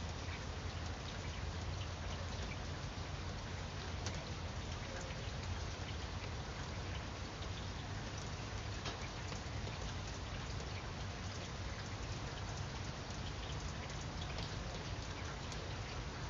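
Steady rain falling, with scattered individual drops standing out as distinct ticks.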